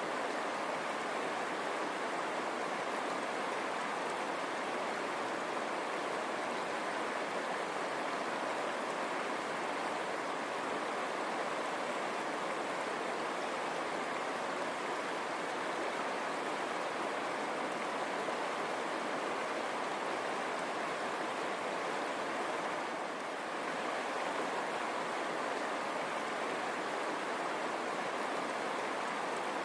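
River water rushing and splashing over rocks, a steady even rush throughout.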